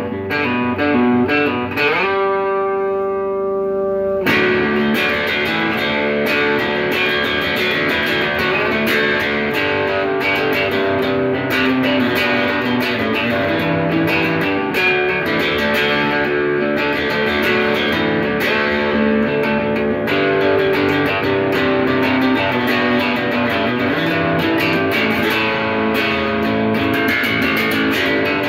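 Electric bass guitar played through a Peavey Classic 30 tube guitar amp with the low end rolled off. It plays a continuous run of notes; about two seconds in, one note slides up and is held for about two seconds.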